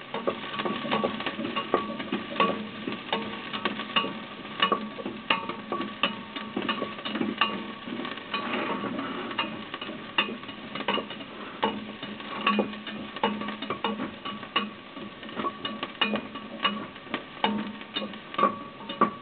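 Chopped garlic and onions sizzling in oil in a pan while being stirred, the utensil clicking and scraping against the pan at irregular intervals.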